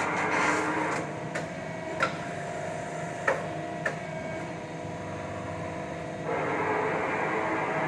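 Steady hum and hiss of running workshop machinery. It drops in level about a second in and comes back near the end, with a few sharp clicks in between.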